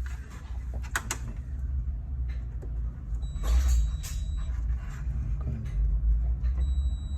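A steady high electronic beep from a bait boat's electronics sounds twice, for about a second in the middle and again near the end. Around it are sharp handling clicks and a low rumble.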